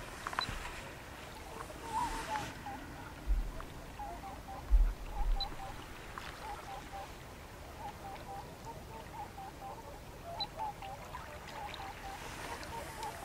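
Distant birds calling over and over in short, small groups of notes, over outdoor ambience. A few low thumps on the microphone are the loudest sounds, and there are a couple of brief gusts of noise.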